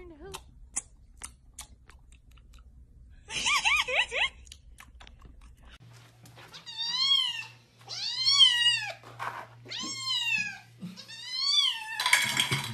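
Domestic cat meowing five times in a row, about a second apart, each meow rising then falling in pitch. Earlier come a few faint clicks and one shorter wavering call. Near the end there is a sudden burst of rushing noise.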